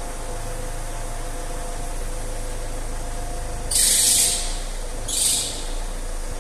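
Alfa Romeo 159 JTDm diesel idling with a steady faint whine, broken twice by short hissing squeals, about four and five seconds in, as the steering is turned to full lock: the belt-like noise the car makes at full steering lock.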